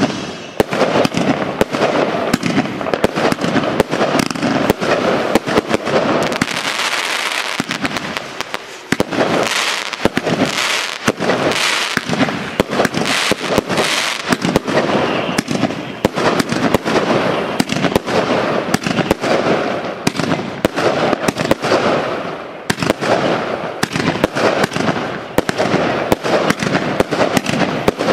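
Eurostar Heavy Nutcase firework cake firing shot after shot, its bursts packed with dense crackling and sharp pops. The firing eases briefly about eight seconds in and again near twenty-two seconds.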